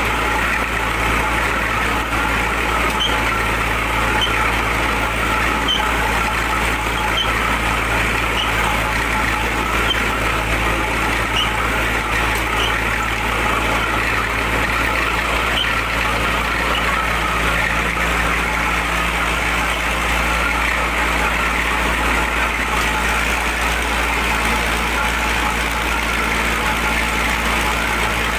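Wire-cut brick making machine running with a steady mechanical drone as it extrudes a clay column, with faint light ticks about once a second through the first half.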